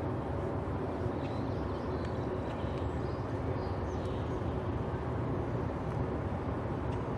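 Steady low rumble with a faint steady hum from a large steam-turbine lake freighter's machinery, with a few faint high chirps about one to four seconds in.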